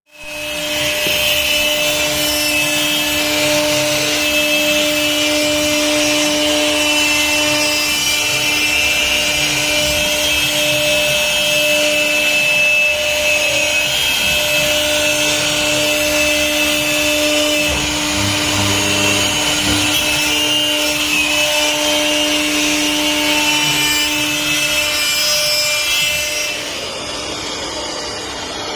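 CNC router spindle cutting wood: a continuous grinding, rasping noise over a steady whine. Near the end the cutting noise drops away and a quieter, steadier whir remains.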